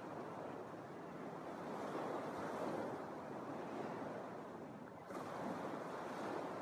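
Small Lake Michigan waves breaking and washing on a sandy beach, a steady wash that swells about two seconds in, fades, and swells again a little after five seconds.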